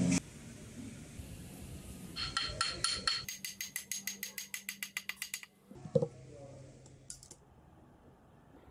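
Pliers working a thin spring-steel rod: a quick run of light metallic clicks with a ringing tone, about eight a second, then a single loud knock about six seconds in.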